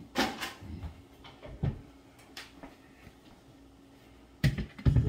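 Kitchen cupboard being opened and rummaged through: scattered knocks and clatters of cookware as a strainer is fetched, the loudest knocks coming near the end.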